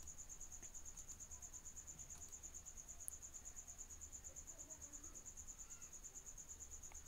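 A cricket chirping faintly and steadily in the background: a rapid, evenly pulsed high trill over a low hum.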